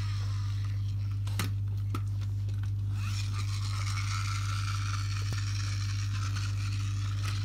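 A steady low hum throughout, with a couple of light clicks and, from about three seconds in, a fainter high steady sound over it.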